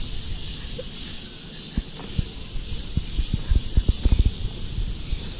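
Dull low thumps and knocks from a child scrambling and bouncing on a small trampoline, sparse at first and coming thick and fast in the second half, over a steady high hiss.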